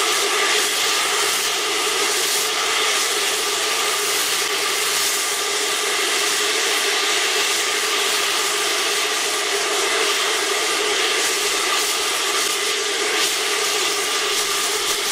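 Steady hiss of steam escaping from a stationary steam locomotive, No. 20, with a faint steady tone in it and no exhaust beats or strokes.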